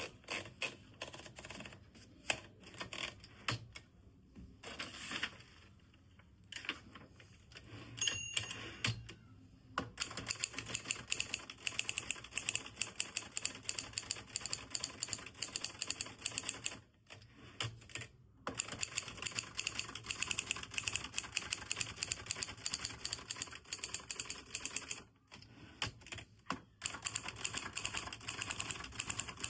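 Adler Junior 12 manual typewriter being typed on: scattered single keystrokes for the first several seconds, with a short ringing tone about eight seconds in, then fast continuous typing broken by a couple of brief pauses.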